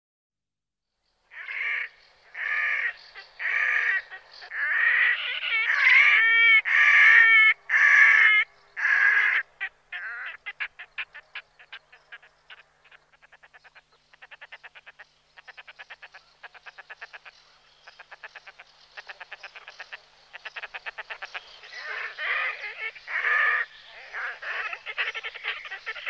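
Red-necked grebe calling, starting about a second in: a run of loud, drawn-out calls, some wavering in pitch, gives way to a long, rapid chatter of short notes. Louder drawn-out calls break in again near the end.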